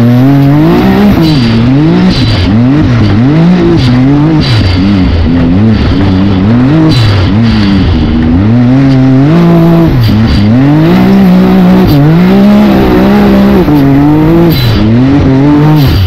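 Can-Am Maverick X3 UTV engine racing flat out on a dirt course, heard from onboard. The revs climb and drop about once a second as the throttle opens and lifts through the turns, with a few longer pulls near the end.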